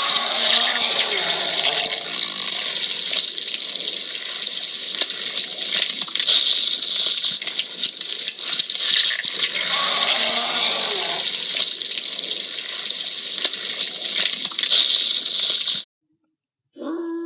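Werewolf transformation sound effect: a loud, steady rushing hiss with rattling through it, and two pitched sounds that waver and fall, about ten seconds apart. The hiss cuts off suddenly near the end, and after a moment's silence a held, howl-like tone begins.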